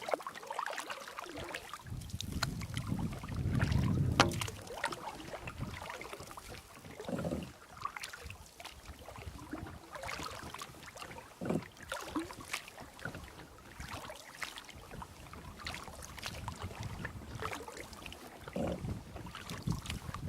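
Wind gusting over the microphone on a small boat on wind-rippled water, with water lapping and a few scattered knocks against the hull.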